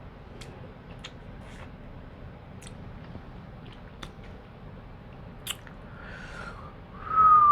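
Close-up eating sounds from seafood: chewing with scattered sharp clicks and smacks. Near the end comes a loud, high, wavering whistle-like tone.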